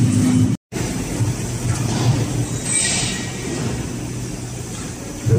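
Steady low mechanical hum of machinery on a factory floor, with a short hiss about three seconds in. It cuts out completely for a split second about half a second in.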